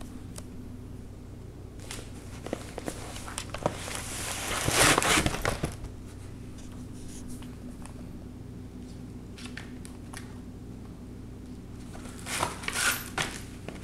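A paperboard drink carton crinkling and rustling as two cats claw and wrestle over it. The sound is loudest for about two seconds near the middle and comes again in a shorter flurry near the end.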